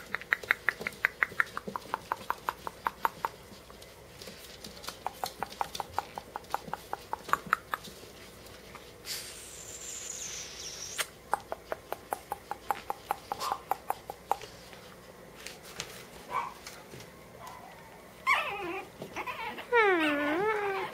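Shih Tzu puppies squeaking and whining: long runs of quick, high squeaks, about five or six a second, then louder swooping whines near the end.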